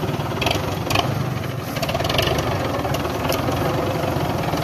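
Belarus tractor's diesel engine running steadily as it pulls a loaded sugarcane trolley, with a few brief sharp noises over it.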